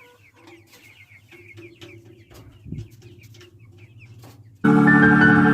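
Chickens clucking quietly, with short scattered calls. Near the end, loud music of held, steady chords cuts in abruptly.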